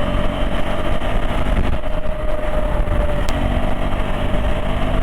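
KTM 390 Adventure's single-cylinder engine running at a steady cruising pace while the motorcycle is ridden. The note dips briefly a little under two seconds in, and there is a single sharp click a little past three seconds.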